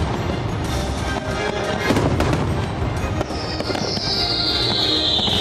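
Fireworks display: shells bursting with sharp bangs about one and two seconds in, then a long whistle falling steadily in pitch from about three seconds in. The show's music plays underneath.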